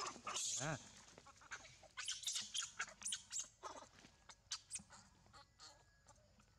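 Pig-tailed macaques calling: a short pitched call about half a second in, then a rapid string of high squeaks a couple of seconds later that fades out.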